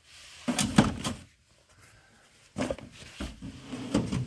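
Tool chest drawers being shut and pulled open: a loud clatter of knocks about half a second in, then after a pause a second run of knocks and rattles from the drawer slides and the tools inside.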